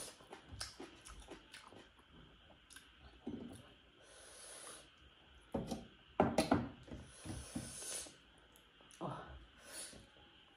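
Close-miked eating: a person chewing and smacking food, with short wet clicks throughout, the loudest cluster about six seconds in, and several audible breaths through the nose in between.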